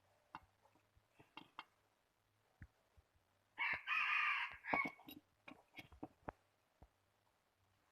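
A rooster crows once, for a little over a second, near the middle. Scattered light clicks and taps come before and after it.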